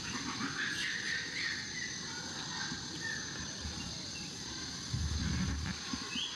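Outdoor ambience: a steady high insect drone with scattered short bird-like chirps, one rising chirp near the end. A low rumble about five seconds in lasts under a second.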